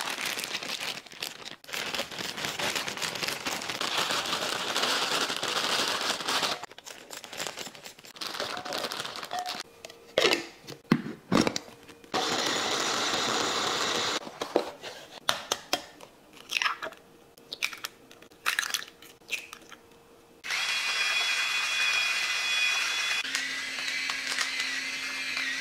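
Carrots and broccoli pouring out of bags and rattling into a glass chopper bowl, then a Syvio electric food chopper running for about two seconds to mince them, with clicks and knocks of the bowl and lid around it. Near the end, a pepper mill grinds black pepper steadily over the bowl for about five seconds.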